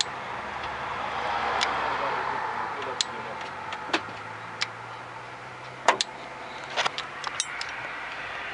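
Scattered sharp clicks and taps, about a dozen and irregularly spaced, with several bunched together near the end, over a steady background hiss.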